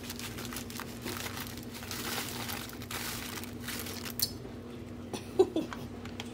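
Dry freeze-dried macaroni and cheese powder poured from a plastic food pouch into a pot of hot water, the pouch rustling as it is shaken empty. A few sharp clicks come near the end.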